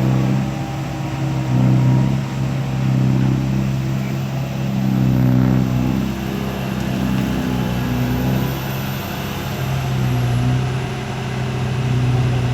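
Komatsu PC160LC hydraulic excavator's diesel engine running steadily under working load while it digs. The engine note swells and eases every second or two.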